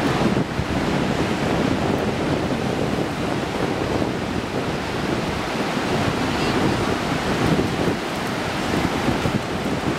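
Ocean surf breaking and washing up a flat sandy beach in a steady, uneven wash, with wind buffeting the microphone.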